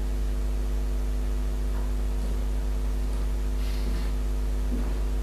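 Steady low electrical mains hum with a ladder of overtones over a hiss. About four seconds in there is a faint rustle of movement.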